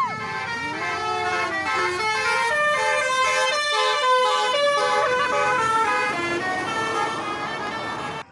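Telolet bus horn, a multi-tone musical horn, playing a quick tune. Several horn tones sound together and step from note to note every fraction of a second, with one swooping note about a second in.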